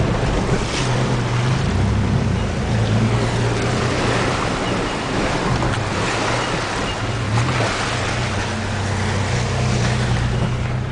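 Mitsubishi Pajero 4WD driving through a creek: water splashing and surging against the vehicle, with its engine running steadily at low revs underneath.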